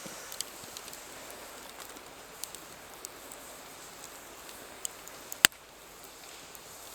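Scattered sharp clicks and ticks over a steady hiss, with one loud crack about five and a half seconds in.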